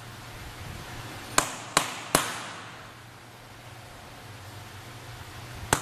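Hand hammer striking a center punch on a metal block, punching center marks at scribed line intersections. Three sharp taps in quick succession about a second and a half in, then one more near the end.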